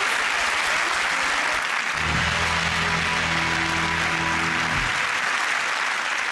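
Studio audience applauding. From about two seconds in, a short held musical chord sounds over the applause and stops a little before the five-second mark.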